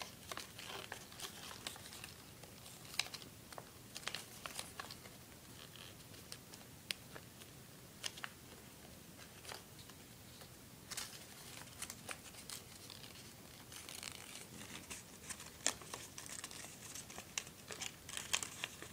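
A sheet of paper being folded and creased by hand: faint rustling with scattered sharp crackles, busier in the last few seconds.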